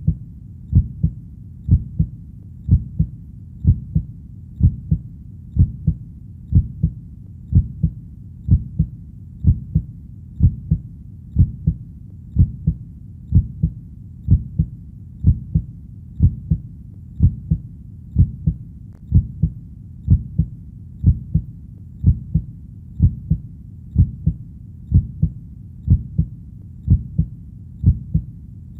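Human heartbeat beating slowly and steadily, each beat a low double thump (lub-dub), about one beat a second over a faint steady background hum.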